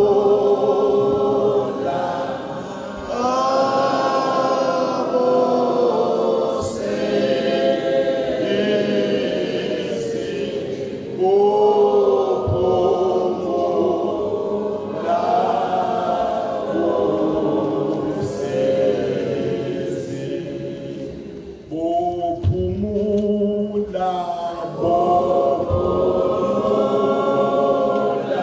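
Church choir of men's voices singing a hymn unaccompanied, in long phrases with brief pauses between lines.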